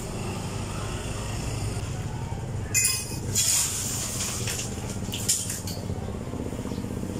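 A vehicle engine idling steadily with a low hum. A few sharp clinks, like cups or dishes being handled, come about three seconds in and again a little after five seconds.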